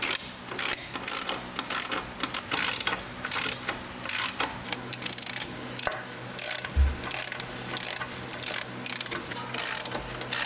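Socket ratchet wrench clicking in quick, uneven strokes as it tightens the strut's mounting nuts, with one dull thump about two-thirds of the way through.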